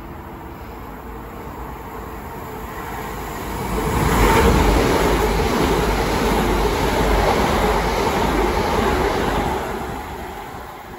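Class 377 Electrostar electric multiple unit passing through the station: the rush of wheels and air builds over a couple of seconds, stays loud for about five seconds as the carriages go by, then fades near the end as the train moves away.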